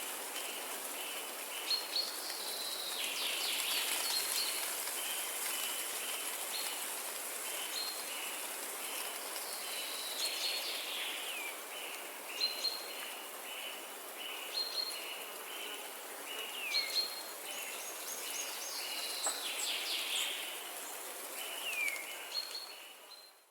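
Songbirds calling over a steady hiss of running water: runs of short, evenly repeated chirps, higher single notes and a few falling whistles.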